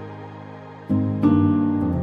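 Soft new-age background music: a sustained keyboard chord fades away, and fresh chords come in about a second in.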